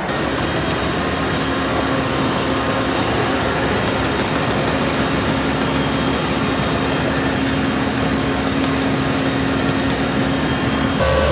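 ISEKI HJ6135 crawler rice combine's diesel engine running steadily as the machine drives along a field path into the paddy, with a constant hum.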